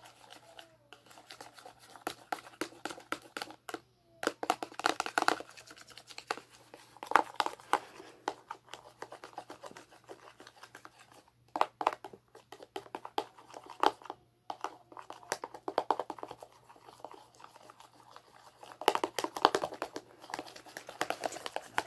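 Hand-made shampoo-and-salt slime being stirred and handled with a utensil in a container: irregular clicks, scrapes and crinkly handling noises that come in several bursts.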